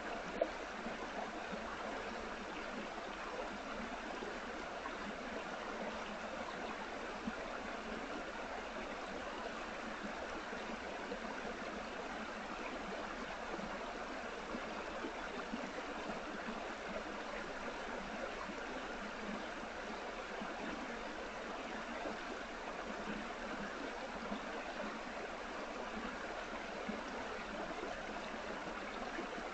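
Steady, even rushing noise with no breaks, with one short click just after the start.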